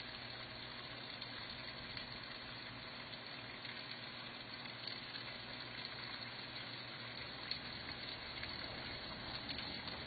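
Heavy rain falling and runoff water streaming across a flooded street: a steady hiss with a few small sharp ticks.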